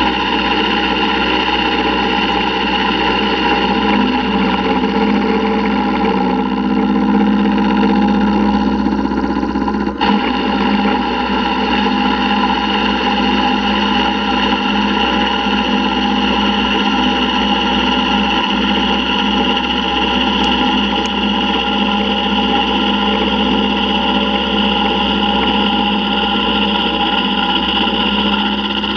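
Vertical milling machine running steadily, its end mill cutting out the inside of a metal T6 exhaust flange, with a brief dip about ten seconds in.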